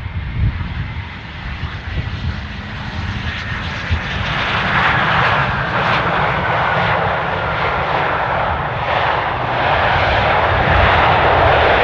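Jet aircraft approaching, its engine noise swelling and growing steadily louder from about four seconds in, with a faint high whine that sinks slowly in pitch.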